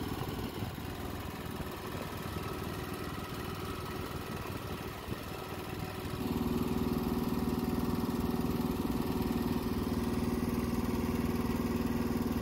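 Small engine of a trailer-mounted hydraulic fence post pounder running steadily. It gets louder about halfway through and holds there.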